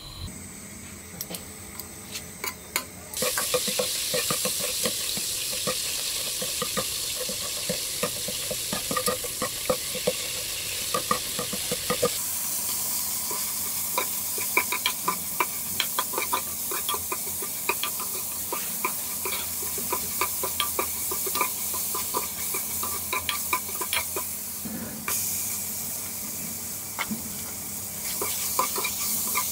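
Hot oil sizzling in an aluminium pot as food fries, with a metal ladle stirring and scraping against the pot in many short strokes. The sizzle starts about three seconds in and grows louder again near the end, as pork pieces and spice paste fry.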